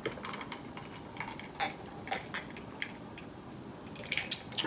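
A person drinking water from a glass mason jar: a handful of short swallowing clicks, spaced out at first and closer together near the end, with small touches of glass.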